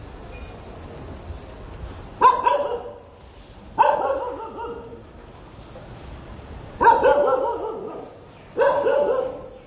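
Dog barking: four loud barks spaced a second and a half to three seconds apart, each trailing off after a sharp start.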